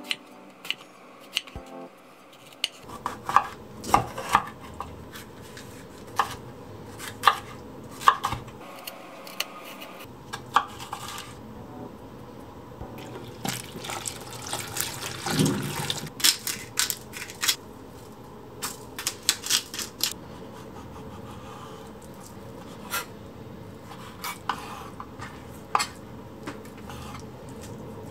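Kitchen food preparation: a knife knocking sharply on a wooden chopping board as eggplant is sliced, then tap water running into a bowl while the eggplant pieces are rubbed and swished by hand, with a few more knife knocks near the end.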